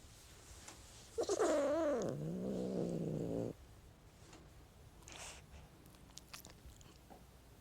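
Cat meowing, the call bending up and down in pitch and then sinking into a low, rough growl, lasting about two seconds and starting a second in. Afterwards only faint short sounds are heard.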